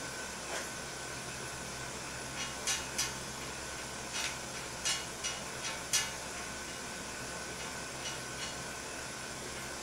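About ten short squirts from a trigger spray bottle of bleach-based cleaner, in quick clusters, over a steady background hum.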